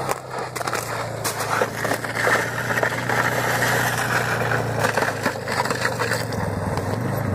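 An engine idling steadily, with irregular crunches and scrapes of boots on the ice around the fishing hole.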